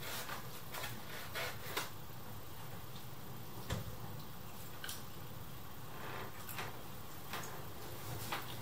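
Scattered soft clicks and taps of a pizza slice being pulled from its cardboard box, then biting into it and chewing, over a low steady hum.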